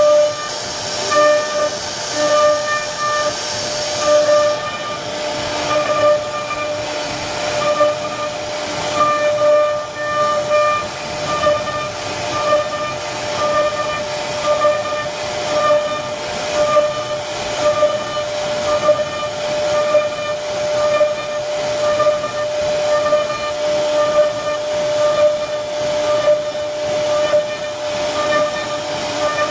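CNC router spindle whining steadily as its bit carves relief into a wooden panel, with a cutting hiss; the sound swells and dips about once a second as the bit works through the pattern.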